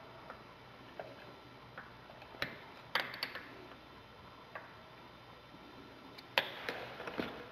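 Scattered light metallic clicks and taps as a steel spring clip is worked against the coolant crossover tube to push it back between the cylinders of a Honda VT750 V-twin. A few come in a quick cluster about three seconds in, and the loudest comes near the end.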